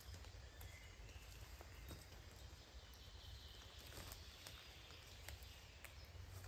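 Faint footsteps and rustling in wet leaf litter on a forest slope, with scattered faint ticks over a low steady rumble.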